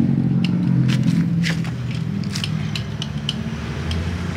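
A wire brush and a hand tool scraping paint, softened with paint remover, off a Honda CB motorcycle engine's cylinder head: irregular scratches and sharp clicks of metal on metal, over a steady low hum.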